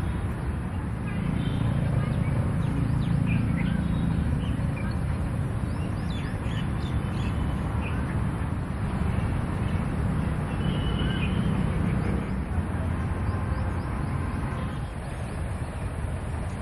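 Outdoor ambience: birds chirping with many short high calls through the first half and a longer call about ten seconds in, over a steady low rumble.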